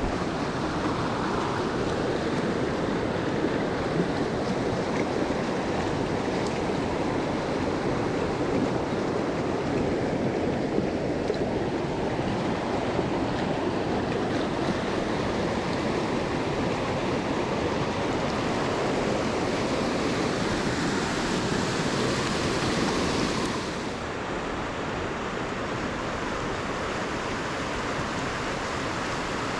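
Mountain stream water rushing over rocks: a steady, even rush. Its level drops a little and its tone changes about two-thirds of the way through.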